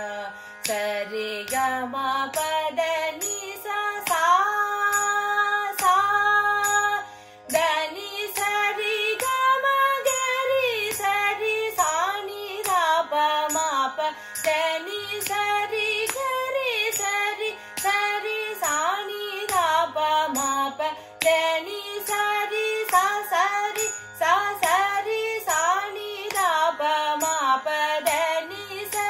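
Woman singing a Carnatic higher-octave (melsthayi) varisai exercise in sargam syllables, with fast gliding runs of notes, over a steady low drone. Sharp clicks mark the beat as she keeps the tala with her hand.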